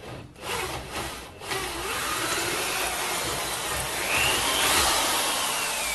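Corded electric hand drill turning the tapping-size drill bit in a freshly tapped hole in a mild steel block to deburr it. A couple of short bursts in the first second and a half, then it runs steadily, its motor whine rising and falling in pitch.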